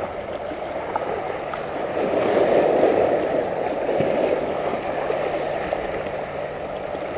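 Small sea waves washing over shoreline rocks close by: a steady rush of water that grows louder in the middle.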